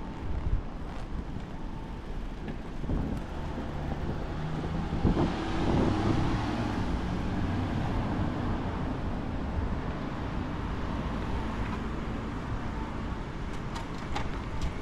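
Street traffic noise with a motor vehicle passing close by, loudest about five to seven seconds in, with wind on the microphone.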